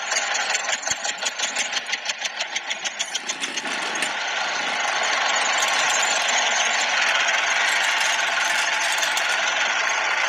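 Tractor engine chugging at about six beats a second, then revving up about four seconds in to a steady, faster run.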